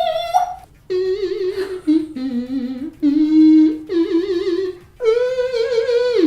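A person imitating an electric guitar with their voice: a series of sustained, wavering sung notes in short phrases. The last one slides down in pitch at the end.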